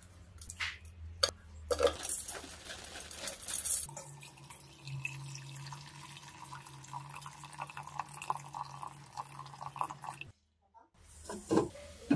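Bay leaf and other aromatics dropped into an empty stainless steel pot with a few light taps. Then water is poured into the pot and runs in steadily for several seconds. After a short break there are a couple of loud knocks near the end.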